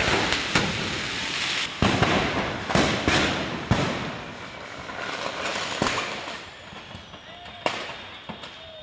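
Fireworks stock going off in a burning fireworks shop: irregular sharp bangs over steady crackling, several a second at first, thinning out and growing quieter toward the end.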